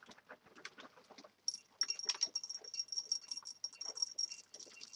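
Crinkling and rattling of a cereal bag being handled, with a steady high-pitched tone from about a second and a half in to about four seconds.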